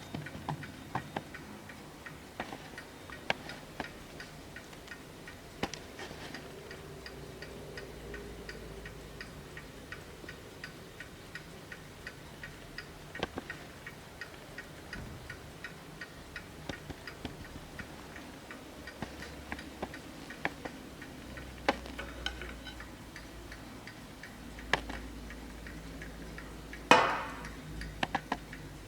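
Hermle skeleton mantel clock movement ticking steadily. Near the end, one much louder sharp strike rings out briefly.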